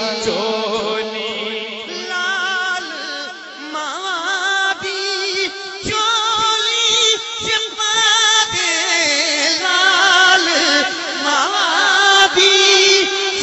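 Male naat reciter singing a long wordless melodic passage into a microphone, the held notes wavering and gliding in ornaments.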